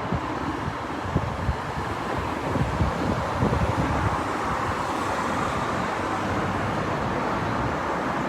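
A train rolling slowly past, a steady noise that grows slightly stronger a few seconds in, with wind buffeting the microphone in the first seconds.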